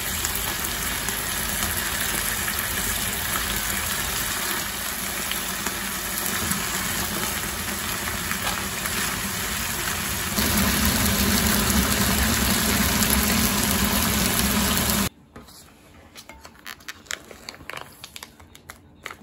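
Spicy stir-fried pork and vegetables sizzling steadily in a frying pan; about ten seconds in, with bean sprouts stirred through, the frying gets louder. It cuts off abruptly near the end, leaving a few light clicks and taps of a rice container against a plate.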